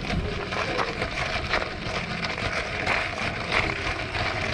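Footsteps crunching on loose gravel: a dense, irregular crackle of small stone clicks.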